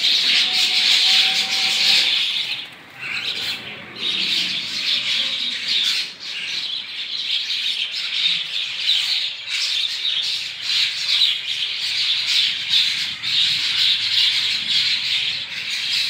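A large flock of birds calling all at once: a dense, continuous chatter of squawks and chirps that briefly thins out about three seconds in.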